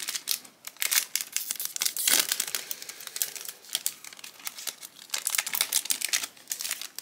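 Foil Yu-Gi-Oh! booster pack crinkling in the hands and being torn open: a dense run of sharp crackles that bunch up about a second in, around two seconds, and again near the end.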